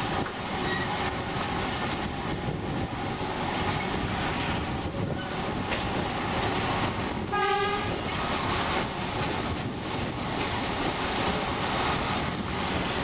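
St. Kitts Scenic Railway train running, a steady rumble of wheels on the rails heard from the open upper deck, with one short horn toot about seven seconds in.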